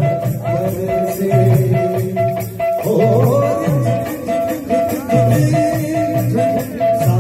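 Baithaki kirtan devotional music: a hand drum beats a steady low rhythm while small cymbals strike in time, over a repeating melodic note.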